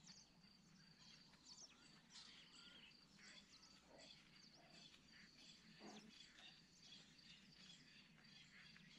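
Near silence: faint bush ambience with scattered short bird chirps and a thin, steady, high insect trill.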